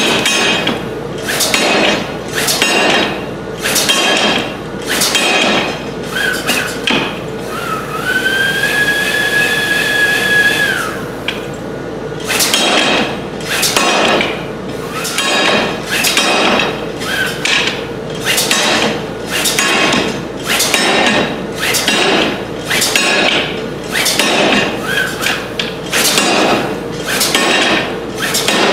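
Power hammer pounding a red-hot bar of railroad-car spring steel in a rounding die: a steady run of blows, about two a second, over a steady hum. About eight seconds in, the blows pause for some three seconds while a whine rises and holds, then the hammering resumes.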